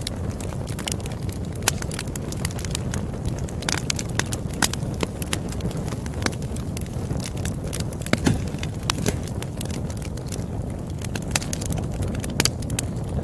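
Campfire burning: a steady low rumble of the flames with frequent irregular crackles and snaps, a few of them louder pops.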